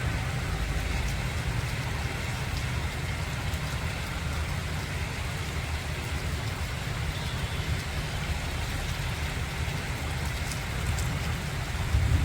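Steady rain falling, with a low rumble underneath and a few light drip ticks.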